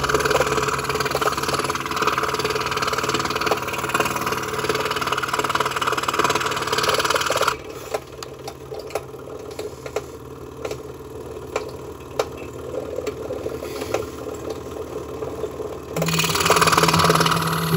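Scroll saw running, its reciprocating blade chattering rapidly as it cuts wood for a jigsaw puzzle. The sound is louder and fuller for the first seven seconds, then drops to a quieter chatter with scattered clicks for about eight seconds, and comes back louder near the end.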